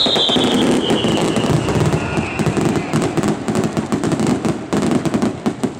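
Aerial fireworks crackling: a dense run of rapid pops and crackles from bursting stars, with a falling whistle fading out over the first two seconds. The crackling dies away near the end.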